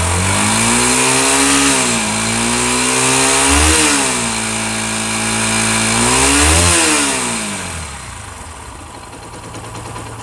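Bajaj Pulsar NS 160 single-cylinder engine revved in three throttle blips and then let fall back, with a harsh high-pitched hiss over the engine note. It is the bad noise the engine makes above about 3000 rpm, which the mechanic puts down to crankshaft bearings damaged by an over-tightened timing chain tensioner.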